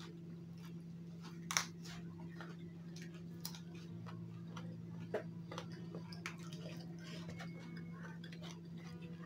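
Close-up eating sounds: scattered short clicks and crunches of chewing raw leaf vegetables and of fingers picking at rice and fish, the sharpest about a second and a half in, over a steady low hum.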